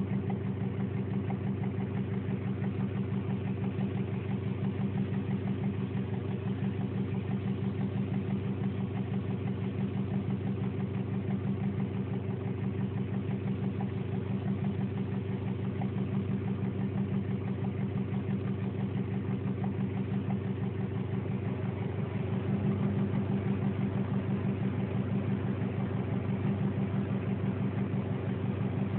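2002 Subaru Impreza WRX's turbocharged flat-four engine idling with a steady, rapid knocking tick. The owner has traced the knock to the cylinder head, so it is not rod knock. The engine gets a little louder about 22 seconds in.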